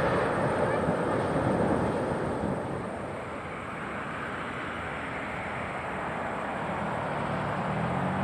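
Airbus A340 jet engines: a broad rumble as the airliner rolls on the runway after landing, then, after a drop, the slowly rising noise of an A340 on approach, with low engine tones growing near the end.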